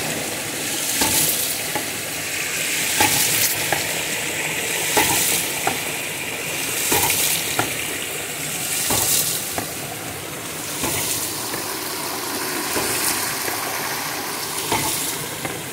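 Hydraulic ram pump cycling: water rushes out through the waste valve and the valve slams shut with a sharp clack, in a regular beat about every two seconds. It is beating steadily, the sign that the ram is running well.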